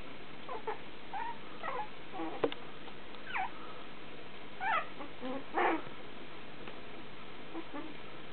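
A litter of very young puppies whimpering: a string of short, high calls that slide in pitch, the loudest two a little before and after the five-second mark, with a single sharp click between them.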